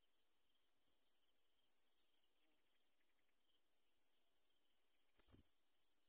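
Faint, high-pitched begging cheeps from Malaysian pied fantail nestlings gaping for food, coming in short clusters that pick up after the first second or so. A soft thump about five seconds in.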